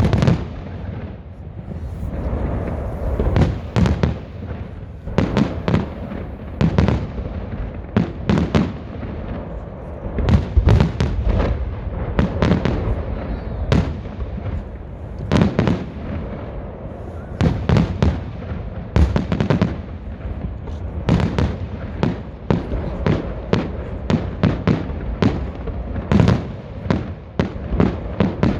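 Festive fireworks salute: aerial shells bursting in quick, irregular bangs, dozens of them, several close together at a time, over a continuous low rumble.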